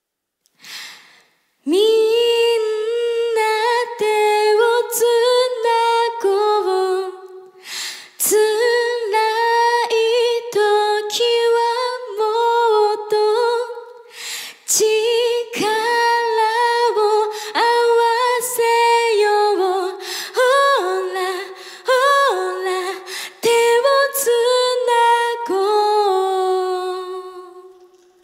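A young woman singing solo a cappella through a stage microphone, in phrases with short breaks, with no instruments; the voice comes in about two seconds in.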